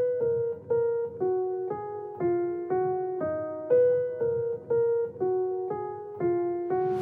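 Background music: an electric piano playing a slow single-note melody, about two notes a second, each note ringing and fading.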